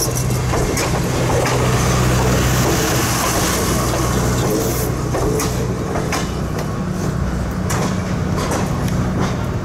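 Passenger railroad coaches rolling past on the rails, with a steady low rumble and scattered wheel clicks over the rail joints. The sound eases a little about halfway through as the last coach moves on.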